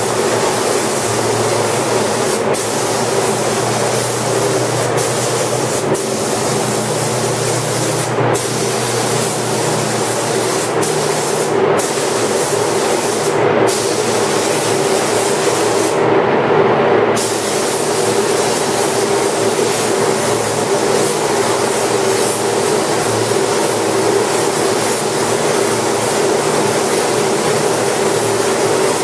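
Paint spray gun hissing in long passes. The hiss cuts out briefly several times as the trigger is let off, the longest gap about sixteen seconds in, over a steady low hum.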